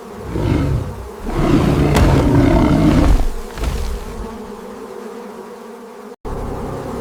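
A steady droning buzz of a bee swarm, with a loud animal roar over it lasting about two seconds, starting a little over a second in. Shorter roaring bursts come just before and after it.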